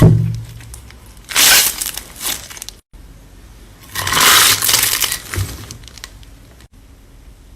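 Slime being pressed and squeezed by hand, giving two bursts of crackly, crunchy noise, one about a second in and a longer one about four seconds in, after a knock at the very start.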